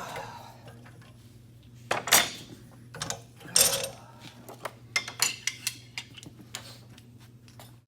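Metal hydraulic fittings and hand tools clinking and rattling as they are handled. There are two louder clatters about two and three and a half seconds in, followed by a run of lighter clicks.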